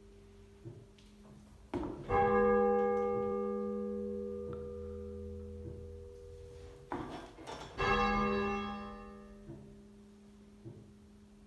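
Half-muffled 10 cwt church tenor bell being tolled. It strikes twice, about six seconds apart, and each stroke rings out and slowly dies away over a steady low hum.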